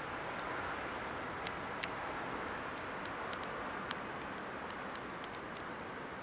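Steady rushing outdoor noise, largely wind on the microphone, with scattered faint short high clicks throughout.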